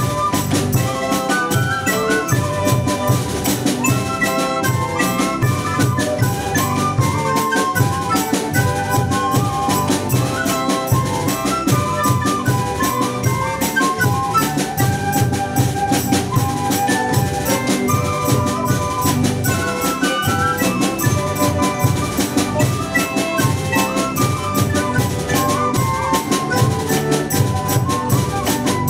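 Folk ensemble playing an instrumental carol: a wooden flute carries the melody over bandoneon, electric bass, guitar and a steady drum beat.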